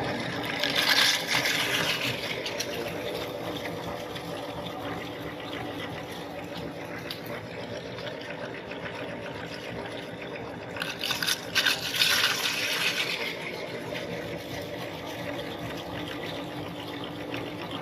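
Electric meat grinder running steadily with a motor hum. Twice, about a second in and again around eleven seconds, a loud crunching crackle rises over it as Doritos corn chips are ground through the auger and cutting plate.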